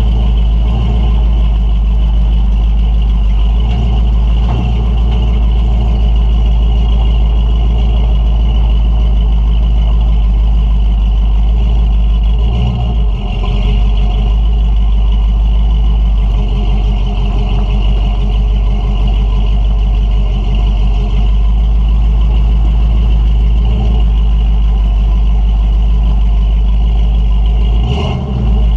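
Exhaust note of a 1976 Ford F350's stock 460 V8 breathing through Hedman headers and a dual 2-1/2-inch exhaust with Thrush Welded Series mufflers, heard from beneath the truck as it drives. A steady, deep rumble that eases briefly about halfway through and again near the end.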